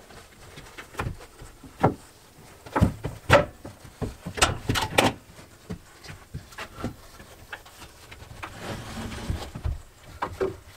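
Footsteps on a plywood subfloor and wooden knocks as a 20-foot wooden gable-end roof truss is carried by hand: an irregular string of sharp thuds, closest together in the first half, with a brief rustle later on.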